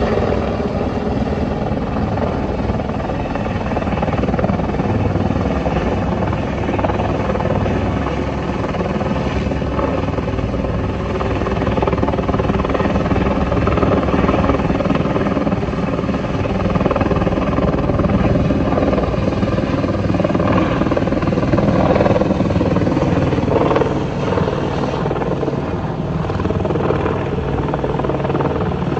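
Helicopter flying overhead with a person slung on a long line beneath it: steady, fast rotor chop with engine noise throughout.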